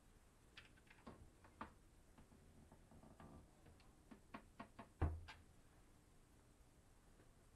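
Hinged galley countertop lid on a yacht being lifted open and lowered shut: a series of light clicks and knocks, ending in a thud about five seconds in as the lid comes down.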